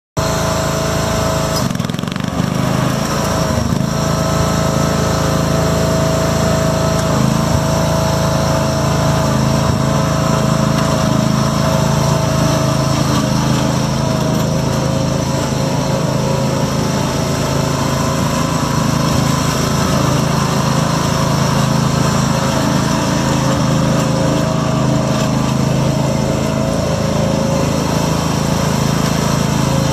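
A 1986 John Deere 180 lawn tractor's 17 HP Kawasaki gasoline engine running at a steady speed while the tractor is driven.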